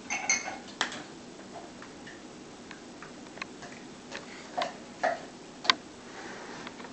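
Scattered light clicks and scuffles from a Bolognese puppy and a larger dog wrestling on a rug, with one sharp click a little before the end.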